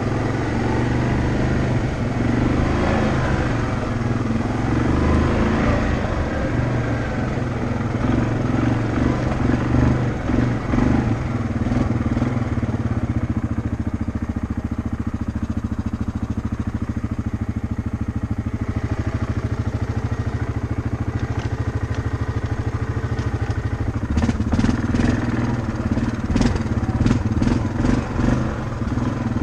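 Rental ATV engine running steadily under way. Near the end, a run of sharp rattling clicks comes over it.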